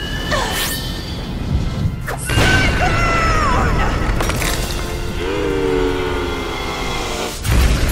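Cinematic fight sound effects over music: a falling swoosh about half a second in, a sharp crack about two seconds in, long pitched tones, and a heavy boom near the end.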